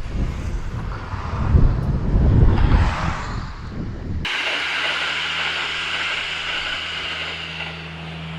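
Wind buffeting the microphone for about four seconds, then an abrupt switch to a steady low hum with a higher hiss, like a distant engine.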